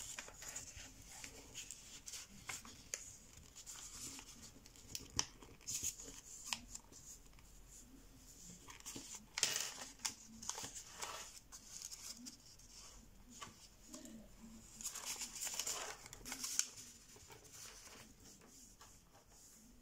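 A sheet of 80 g/m² printer paper being folded by hand: light rustling and crisp crackles as flaps are moved and creases pressed flat, with louder rustles about halfway through and again a few seconds later.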